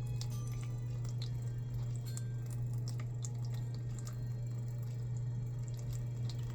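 Rain cloud humidifier dripping water into its base in irregular drops, over a steady low hum from the unit.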